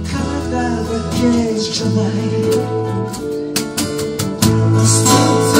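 Live acoustic band playing: acoustic guitars strummed over cajon beats, with held low bass notes underneath.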